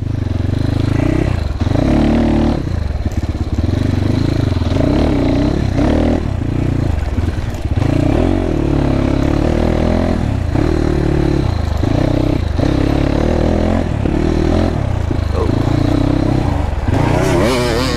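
GPX FSE300R dirt bike's single-cylinder four-stroke engine being ridden on a dirt track, the revs rising and dropping off every second or two as the throttle is opened and closed.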